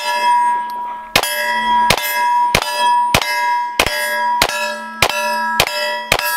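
About ten 9mm shots from a Glock 19 in an MCK carbine conversion kit, one every half second or so after a short pause following the first. Each shot is answered by a steel target being hit and ringing with a clear steady tone that carries on between shots.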